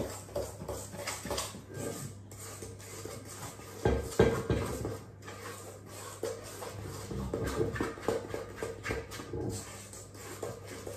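A metal spoon scraping and clinking against a stainless steel mixing bowl as brownie batter is stirred: irregular knocks and scrapes, busiest about four seconds in.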